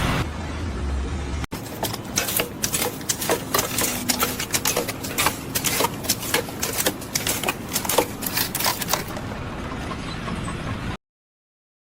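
Rapid, irregular clattering and knocking, many sharp clicks a second, which cut off suddenly to silence near the end.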